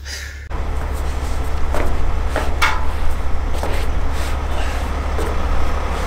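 Truck engine running steadily behind a raised end-dump trailer. A few sharp knocks fall on top of it as someone climbs the trailer's tipped steel bed.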